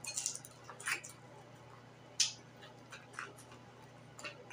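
Close-miked chewing of crispy fried pork chop: a string of short, sharp crunches and wet mouth clicks, the loudest a little after two seconds, over a faint steady low hum.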